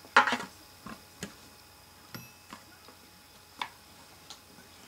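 Handling noise from a cardboard packing box being tipped and lifted away: a short clatter just after the start, then a few light, scattered ticks and taps.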